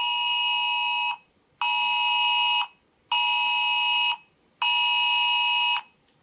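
Recorded Wireless Emergency Alert attention signal played back: a harsh two-tone alert sounding in long beeps with half-second gaps, four in all, the last cutting off near the end.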